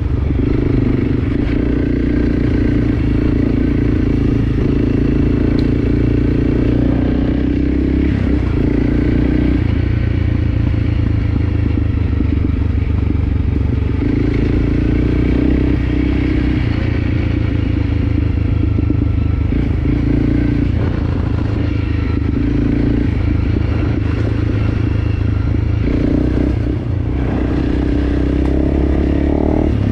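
Enduro dirt bike engine running under way on a trail, its note shifting a few times with the throttle.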